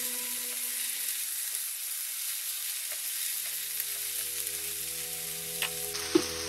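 Napa cabbage, onion and chili flakes sizzling as they stir-fry in a nonstick wok, turned over with a silicone spatula. Two short knocks near the end.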